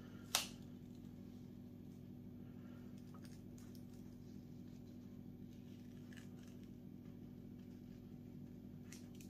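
Quiet handling of an adhesive vinyl chassis skin being peeled from its backing and pressed down by hand: one sharp click about half a second in, then a few faint ticks, over a steady faint low hum.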